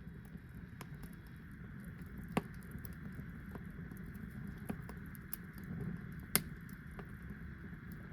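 Wood fire crackling, with scattered small snaps over a steady low rumble and two louder pops, about two and a half seconds in and again about six seconds in.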